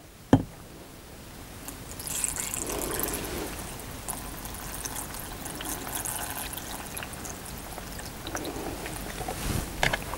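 Water poured from a glass jug into a plastic blender jar packed with fresh spinach leaves: a steady splashing trickle that starts about two seconds in and runs for several seconds. A short knock comes right at the start.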